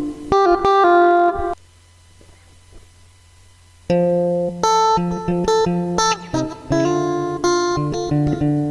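Tagima T-635 Strat-style electric guitar played through a multi-effects pedal: ringing chords for about a second and a half, a pause of about two seconds with only faint amp hum, then a run of chords and single notes.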